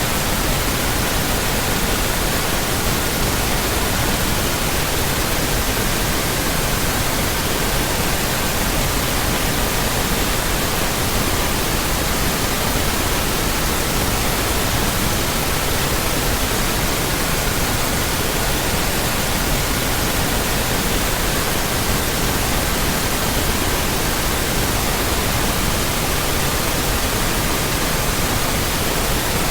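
Steady pink noise, an even full-range hiss. A faint pure tone sits beneath it and steps between about 1200, 1320, 1440 and 1555 Hz, changing pitch every few seconds.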